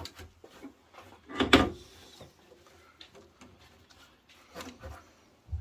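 Handling noise: a loud clatter about a second and a half in, with a few lighter clicks and knocks around it.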